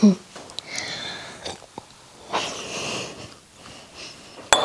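A person sipping water and breathing audibly through the nose, in two breathy stretches. Near the end comes one sharp clink of a stemmed glass set down on a glass tabletop, ringing briefly.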